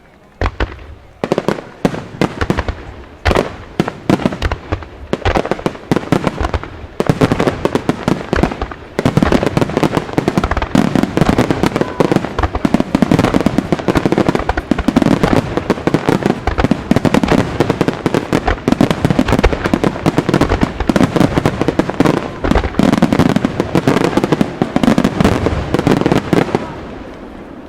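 Aerial fireworks bursting: separate loud bangs at first, then about 9 seconds in a dense rapid-fire barrage of bursts that keeps going and stops abruptly near the end.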